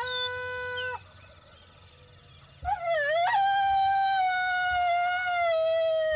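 An electronic predator caller plays a recorded howl. A wavering held note cuts off about a second in. After a short break, a warbling rise leads into one long, slowly falling howl.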